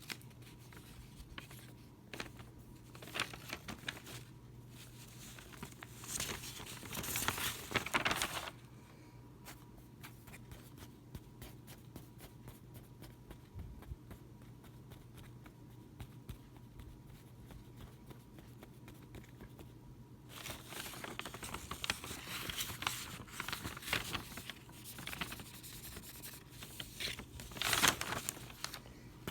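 Rustling, crinkling and scraping handling noises, with scattered clicks and louder stretches about six seconds in and again from about twenty seconds on, over a steady low electrical hum.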